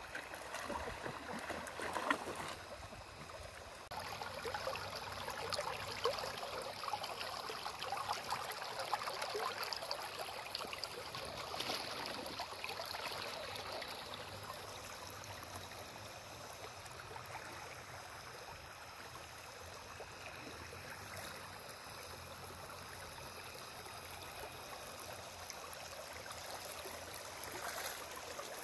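Shallow, clear river running steadily over rocks and pebbles. A couple of short, sharp sounds stand out in the first several seconds.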